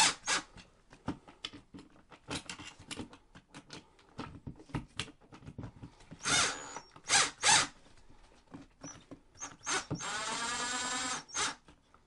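Cordless drill-driver driving the mounting screws of a wall switch into its electrical box: short bursts from the driver, then near the end about a second of steady motor whine rising slightly in pitch, with clicks and taps of the bit and switch plate throughout.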